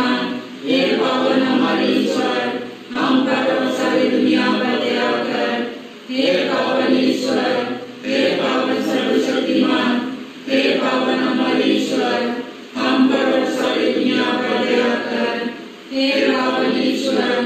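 A group of voices singing together without instruments, in phrases of about two seconds with a short break after each.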